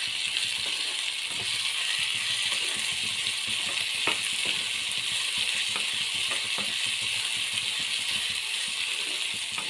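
Chopped capsicum frying in oil in a pan with a steady sizzle, while a spoon stirs it, clicking and scraping against the pan now and then.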